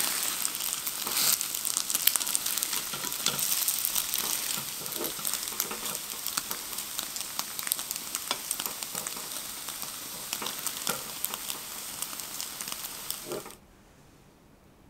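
Butter-fried French toast (bread soaked in coffee and egg) sizzling in a pan, with fine crackles and pops and now and then soft knocks of metal tongs pressing and turning the slices. The sizzle grows gradually quieter, then cuts off suddenly about a second before the end.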